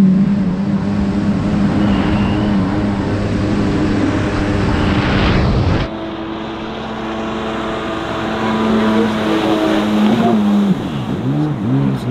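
Stand-up jet ski engine running hard at speed across a pond: close up from the rider's own camera at first, then, about six seconds in, from the shore, its pitch rising and falling as it carves and passes by near the end.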